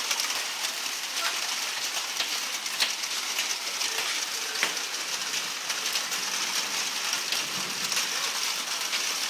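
Hailstorm: hail and rain falling on the street and parked cars, a steady hiss with scattered sharp clicks of hailstones striking.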